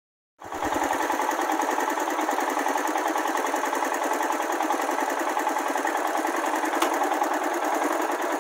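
Motorcycle engine running steadily with a fast even chatter, close to the microphone. It starts abruptly about half a second in.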